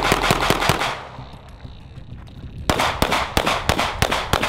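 Glock 17 9mm pistol firing a fast string of shots, a pause of nearly two seconds, then a second fast string. The brand-new gun cycles through its first rounds without a malfunction.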